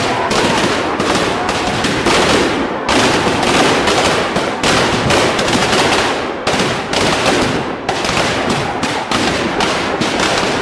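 Firecrackers packed inside a burning Ravana effigy going off in a dense, rapid string of bangs and cracks with only brief lulls.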